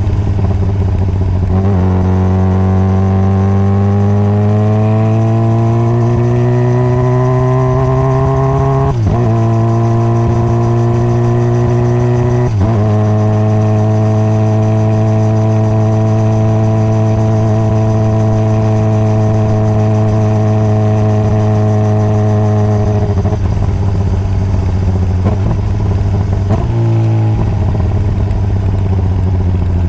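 Honda CBR600RR's inline-four engine on the move: the pitch climbs steadily under acceleration, drops at two upshifts about nine and twelve seconds in, then holds steady at cruise. Near the end the pitch falls in two steps as the bike slows.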